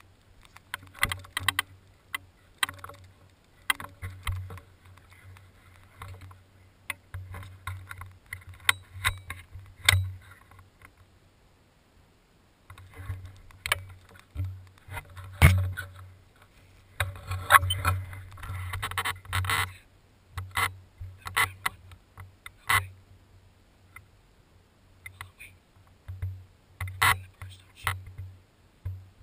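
Irregular bursts of rustling and sharp clicks, some louder knocks among them, each with a low rumble, with a brief lull partway through.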